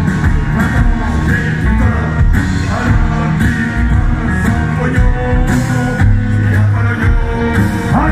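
Live band playing loud rock with accordion, cello, saxophone and guitars over drums and bass, heard from the crowd in front of the stage.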